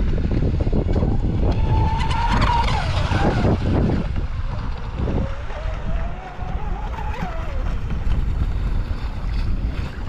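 High-pitched whine of an RC speedboat's brushless electric motor (Rocket 3660 1800kv on 6S). It rises and falls twice as the throttle changes, over heavy wind rumble on the microphone.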